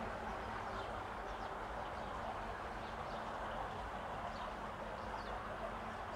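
Scattered faint, short bird chirps over a steady outdoor background noise.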